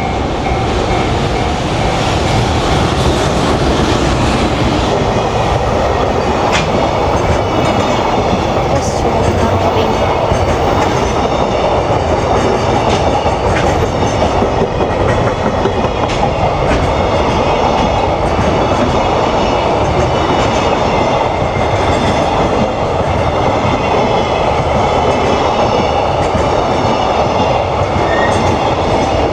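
Trains running past at close range: a continuous loud rumble of steel wheels on rails with a few clicks scattered through it.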